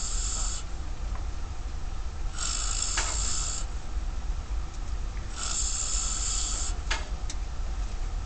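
A man snoring heavily, one harsh, hissing snore about every three seconds, three in all. A steady low hum runs underneath.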